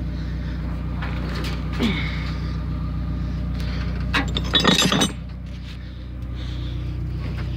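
Metal clinking and clattering as a stainless-steel gas grill is handled and tipped: one knock just under two seconds in, then a burst of rattling clinks at about four and a half seconds. A steady low hum runs underneath.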